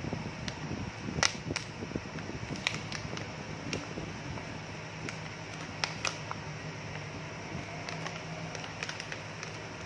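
Gold paydirt gravel clicking against a gold pan in scattered, irregular sharp ticks, over a steady low hum.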